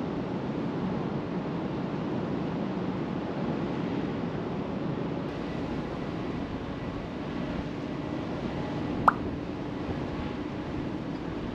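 Steady low rumble and wash of a large car ferry getting under way, its engines and the churned water heard from the open deck. A single sharp click about nine seconds in.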